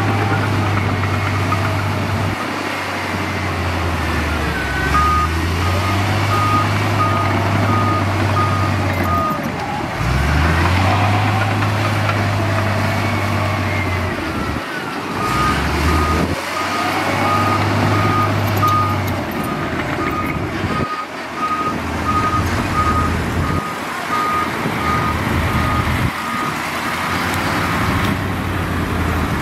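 Heavy diesel earthmoving machinery working, its engines droning and changing pitch as they load up and ease off. A back-up alarm beeps about twice a second for a few seconds, then again through much of the second half.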